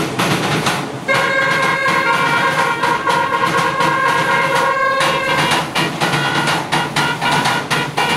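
Many Perchten bells clanging in an irregular din. A loud, steady horn blast comes in about a second in, holds for about four seconds and drops back near five seconds.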